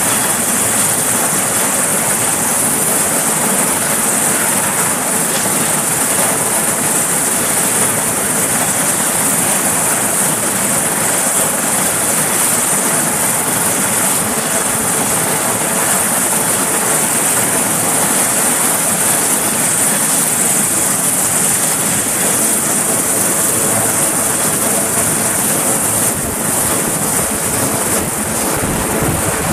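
Sikorsky S-61 helicopter running on the deck before lift-off: its twin turboshaft engines and turning main rotor make a loud, steady noise with a strong high-pitched hiss.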